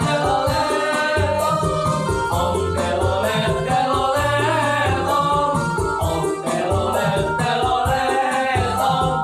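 A song playing: a voice singing a melody over a backing with a steady beat and bass.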